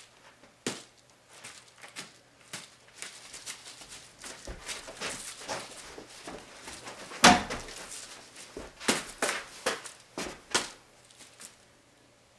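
Irregular knocks, thumps and rustling from a person moving about and scuffling in a small room, with one loud thump about seven seconds in and a quick run of knocks a couple of seconds later.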